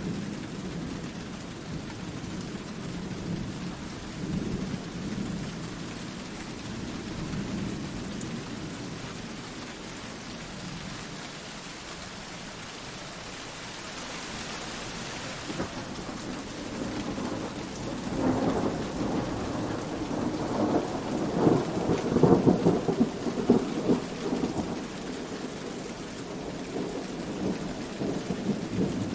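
Steady rain with rolling thunder. A long, louder rumble of thunder swells in past the middle and dies back near the end.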